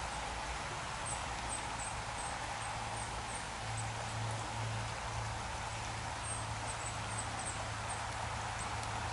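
Shallow stream running over a gravel bed, a steady rushing and rippling of water, with a low hum underneath and a few faint high peeps.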